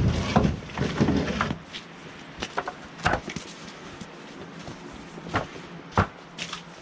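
Scattered hard knocks and clunks, a few seconds apart, with heavy low rumbling thuds in the first second and a half.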